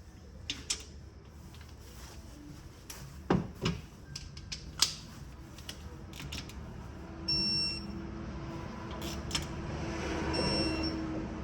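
Hand tools clinking on the engine's metal parts a few times, then two short high-pitched beeps about three seconds apart from a digital torque wrench signalling that the bolt has reached its set torque of about 9 foot-pounds.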